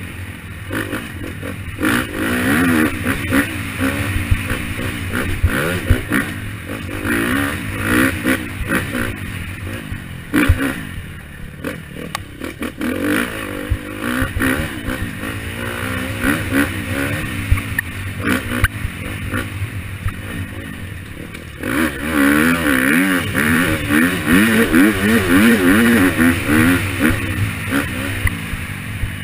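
KTM 250 dirt bike engine revving up and down through the throttle, with clatter from the bike over rough ground. The revs run hardest for the last several seconds.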